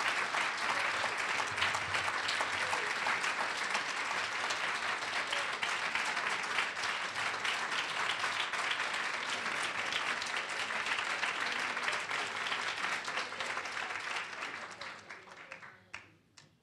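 Audience applauding steadily, thinning out and fading near the end with a few last scattered claps.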